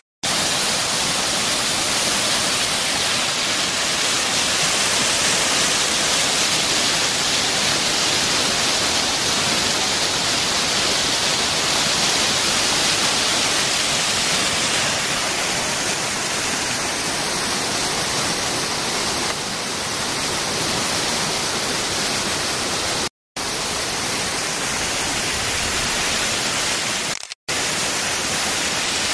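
Tall fountain jets and a stone cascade pouring water: a steady, dense rushing and splashing, cut off completely by two brief gaps about 23 and 27 seconds in.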